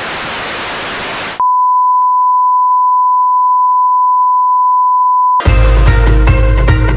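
Static-like hiss for about a second and a half, then a single steady test-card beep of the kind played under colour bars for about four seconds. The beep cuts off abruptly into loud music with a heavy bass.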